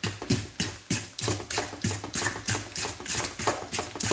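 Fork beating a wet egg batter in a stainless steel mixing bowl, the tines clicking against the metal in a steady rhythm of about three strokes a second.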